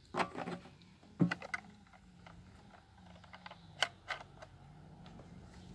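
Short plastic clicks and knocks from handling a Stihl MS180 chainsaw's fuel filler cap and the fuel can after refuelling: the cap is being screwed shut, with a few sharp clicks near the end.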